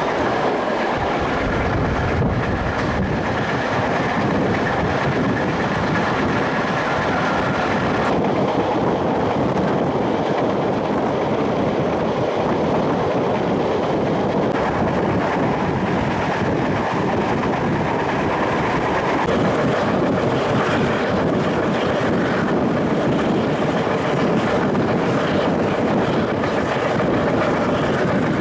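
Diesel-hauled train running at speed, heard from aboard: a steady rumble of wheels on the rails.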